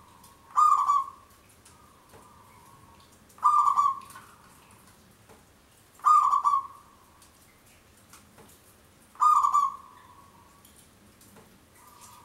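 Zebra dove (perkutut) singing its cooing song four times, about every three seconds. Each phrase starts with a soft coo and ends in a loud burst of about half a second.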